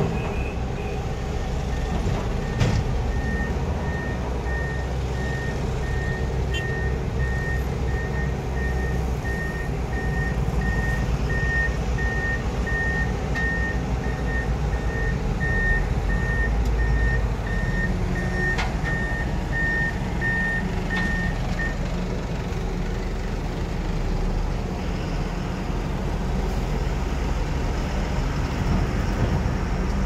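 Hyundai Robex 215L crawler excavator's diesel engine running steadily under hydraulic load while digging and loading soil. A regular electronic warning beeper sounds over it and stops about two-thirds of the way through. There are a couple of sharp metal knocks.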